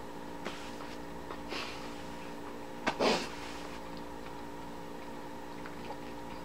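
A person chewing, with a few soft breaths through the nose; the loudest is a short, sharp sniff about three seconds in. A steady electrical hum runs underneath.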